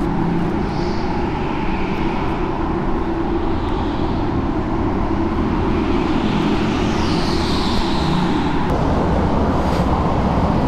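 Go-karts running on the indoor track, heard as a steady, loud mixed drone. A held tone within it stops about nine seconds in.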